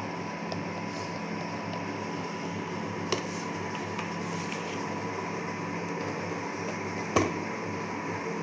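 Steady low mechanical hum with a faint high whine running through it, broken by two brief sharp clicks: a light one about three seconds in and a louder one about seven seconds in.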